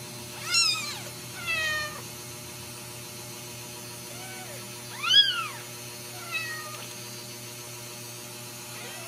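Newborn Ragdoll kittens mewing: about five short, high-pitched cries, each rising and falling in pitch, the loudest about five seconds in.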